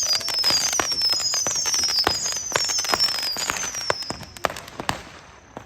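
Brothers 'Mechanical Bug' fireworks cake firing: a string of overlapping high whistles, each falling in pitch, over dense crackling pops. The whistling stops about four seconds in, leaving a few scattered pops.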